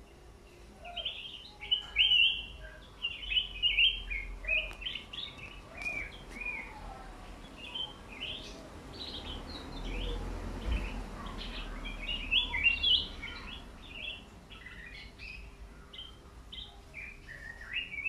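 Caged songbird singing a rapid, varied song of quick chirping notes, loudest in bursts about 2 s, 4 s and 12 s in.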